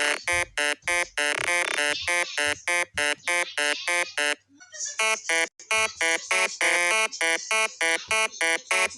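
Pig squealing in a rapid run of short, high calls, about four a second, with a brief pause about halfway through.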